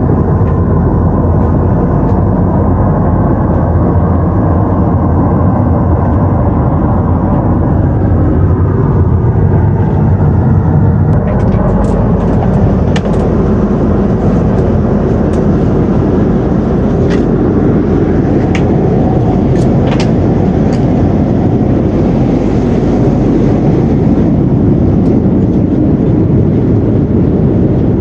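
Steady cabin noise of an Airbus A330-300 cruising at altitude: a loud, even rush of airflow and engine noise. From about the middle on, several light clicks sound over it.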